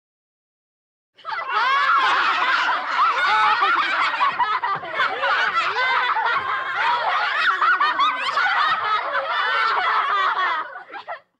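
A group of children laughing together, many voices overlapping, starting about a second in and cutting off sharply near the end.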